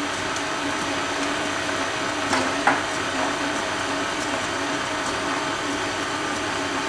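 KitchenAid Artisan tilt-head stand mixer running steadily, its flat beater turning through a runny batter of melted butter, sugar, eggs and vanilla. The motor gives a constant hum. Two short clicks come a little over two seconds in.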